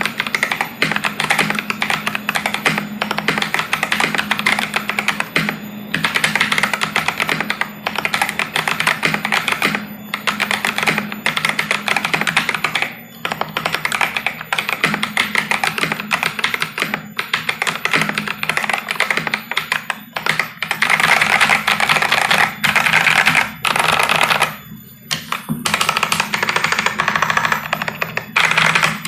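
Fast, continuous typing on a Vortexseries VX64 Lite mechanical keyboard with lubed Akko CS Lavender Purple tactile switches on a polycarbonate plate and GSA keycaps: a dense run of keystroke clacks, broken by a couple of brief pauses.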